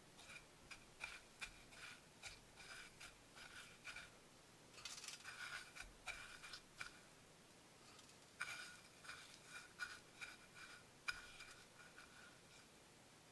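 Faint, irregular scraping and crunching of fingers pressing fish strips into dry panko breadcrumbs on a ceramic plate, in short scratchy bursts, with one sharp tap near the end.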